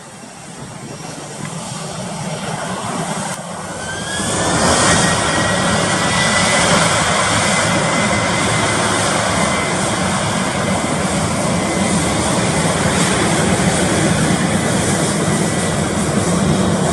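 Airliner's engines throttling up for takeoff: a rushing roar that builds, then from about four seconds in a loud steady roar with a rising whine that settles into one held note.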